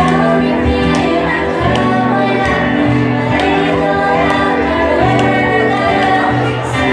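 Devotional song: singing over instrumental accompaniment with held bass notes and a steady beat.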